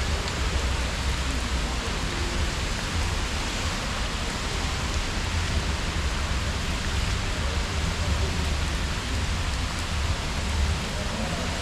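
Steady heavy rain falling, an even hiss of the downpour with a constant low rumble underneath.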